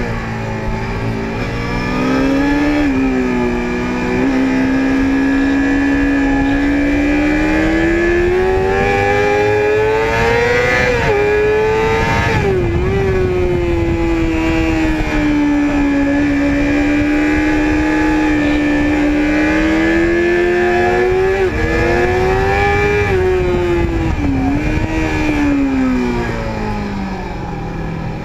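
Yamaha sport motorcycle's engine at track speed, heard from on board with wind rush: the engine note climbs steadily under throttle for about ten seconds, drops sharply at gear changes around the middle, climbs again, and falls away near the end as the bike slows into a bend.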